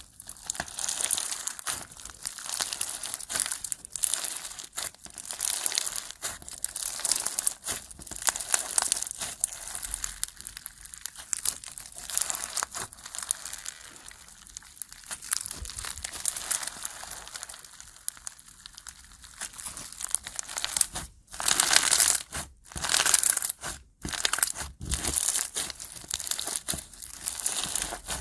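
Floam slime packed with foam beads and clear beads being squeezed, kneaded and stretched by hand, giving a dense, irregular run of crunchy crackles and pops. There is a louder flurry about three-quarters of the way through.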